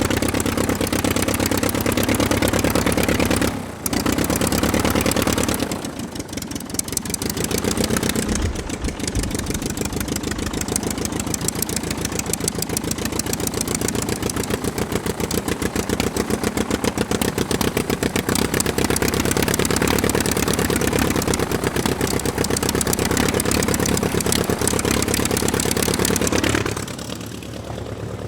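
Piston engine running with a rapid, even firing pulse. The sound dips briefly about four seconds in, again around six seconds, and near the end.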